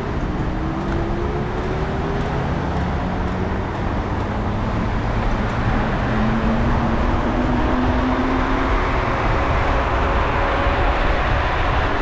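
Road traffic noise with a steady low rumble of wind on the microphone from riding a bicycle. Engine tones from passing motor vehicles rise slowly in pitch several times, as if they were accelerating.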